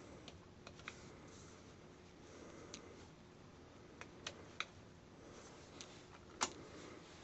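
Faint, irregular small clicks from handling a Casio AC-200 robot alarm clock, with one louder click about six and a half seconds in.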